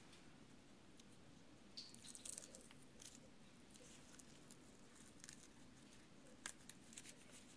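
Near silence with faint, scattered crinkles and rustles of a Tegaderm transparent film dressing being peeled and pressed on with gloved hands, a small cluster of them about two seconds in.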